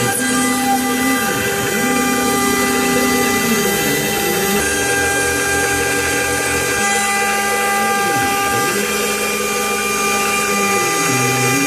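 OpenBuilds OX CNC router wet-milling carbon fiber plate: the spindle and end mill whine steadily as they cut under a water coolant spray. A lower motor hum changes pitch as the machine moves, dipping and rising again several times.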